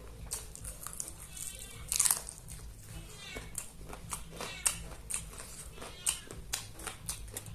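Close-miked chewing and crunching of chicken, with many sharp crackling bites and wet mouth smacks, the loudest crunch about two seconds in.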